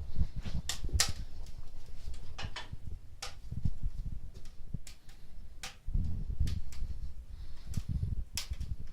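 Fire crackling in a fireplace: irregular sharp pops and clicks over a low, uneven rumble.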